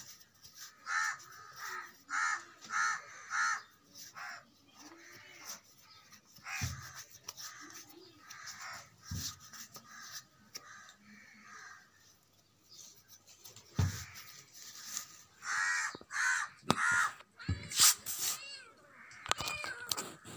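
Crows cawing in short runs of three or four caws, with a few dull thumps in between.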